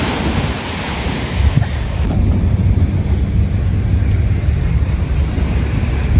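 Small sea waves washing onto a sandy beach, with wind buffeting the microphone; about a second and a half in, the low wind rumble takes over from the hiss of the surf.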